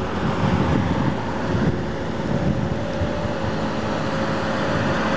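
Distant Federal Signal fire siren holding a steady tone, faint under steady background noise.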